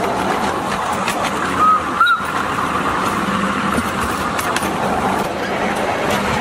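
Miniature live-steam locomotive and its riding cars running along a garden railway, a steady rolling and running noise. Two short high tones sound about two seconds in.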